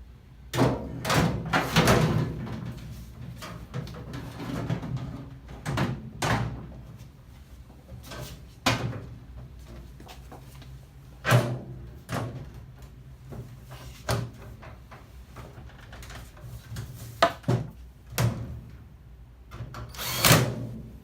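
Irregular knocks, clunks and clatters of hard objects being handled, about a dozen spread through the stretch, with a longer, louder clatter near the end.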